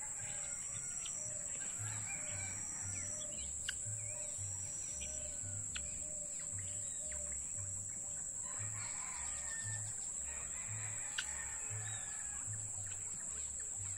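Domestic fowl calling now and then, most busily about eight to ten seconds in, over a steady high-pitched insect drone.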